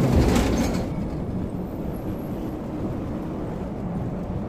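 Cabin noise of a moving electric city bus: a steady low road and tyre rumble, a little louder and brighter for the first second.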